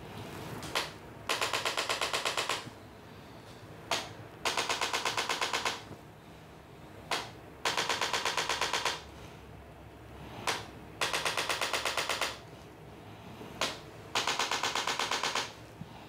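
Handheld electronic Impulse adjusting instrument firing against the lower back: a single sharp click, then about a second of rapid clicking at roughly ten thrusts a second. The pattern repeats five times, about every three seconds, as the instrument's thrusts stimulate the small muscles that stabilise the spine.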